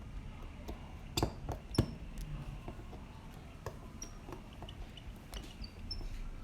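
Small scattered clicks and taps of iPhone XS parts and repair tools being handled during reassembly, with two sharper clicks a little over a second in.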